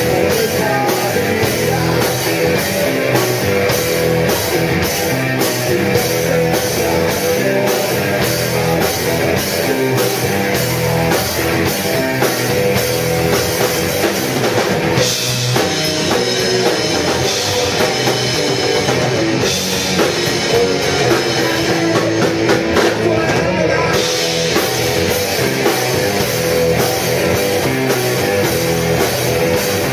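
Live rock band playing: electric guitars, bass and drum kit, loud and steady, with a brighter, denser stretch in the middle.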